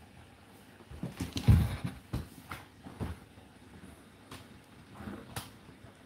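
Whirlpool WFO3P33DLXUK dishwasher running its 65 °C full cycle, giving a series of irregular knocks and thuds, the loudest a heavy thud about a second and a half in, with single sharper strikes spread through the rest over a quiet background.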